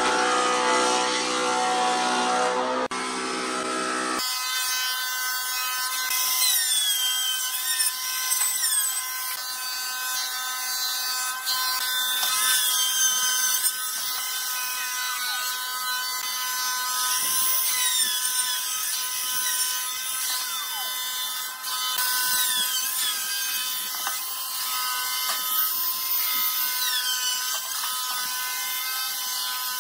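Electric power tool running with a steady high whine, with quick high sweeps that fall in pitch again and again as it works; the sound changes about four seconds in.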